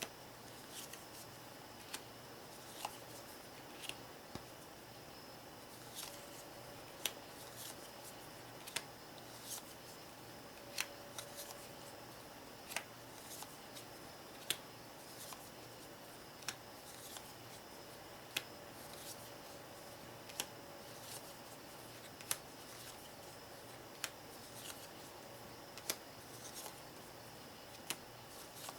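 Playing cards being handled and set down one at a time on a table, a short sharp snap every second or two.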